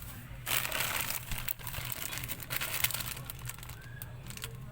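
Handling noise: a burst of rustling and crinkling about half a second in, then scattered clicks and shorter rustles, over a low steady hum.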